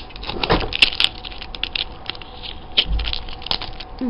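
Packaging for a set of nail-design strips being crinkled and pulled at by hand: a dense, irregular run of crackles and clicks, with one dull bump about three seconds in.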